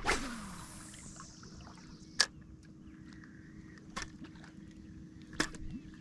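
A fishing cast: line whizzes off the reel with a rush that falls in pitch over about a second and a half. Then come three sharp clicks a second or two apart as the lure is worked.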